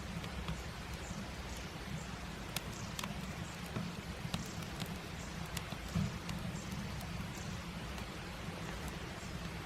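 Light rain outdoors: scattered, irregular drop ticks over a steady low rumble.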